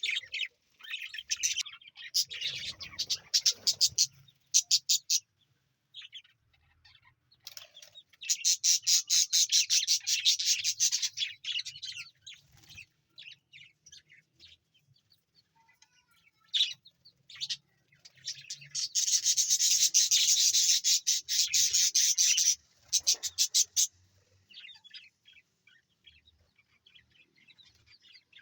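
Budgerigars chirping in fast, evenly pulsed trains of high notes. Two long loud runs of several seconds each stand out, one about a third of the way in and one about two-thirds in, with quieter scattered chirps between and after.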